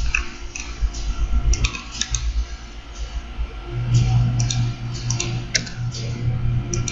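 Scattered clicks of a computer keyboard and mouse in use, irregular and fairly sharp. A steady low hum comes in about four seconds in.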